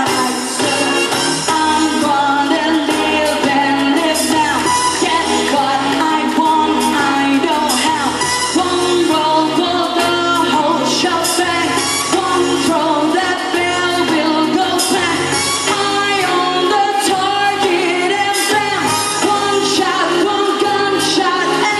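Pop song with a singer's voice over a full band backing track.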